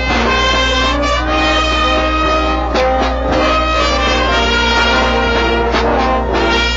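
Brass band playing a tune, with a few drum strokes, over a steady low hum.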